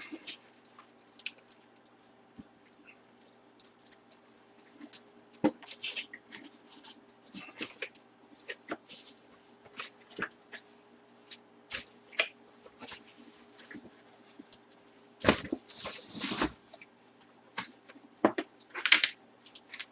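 Cardboard box and plastic packaging being handled and opened: scattered clicks and rustles, with louder rustling and tearing about fifteen seconds in and again near the end. A faint steady hum runs underneath.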